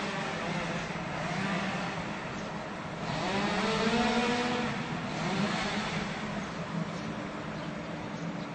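Two-stroke chainsaw engine revving, its pitch sweeping up and falling back several times, highest about three to four seconds in. It settles to a lower, steadier run near the end.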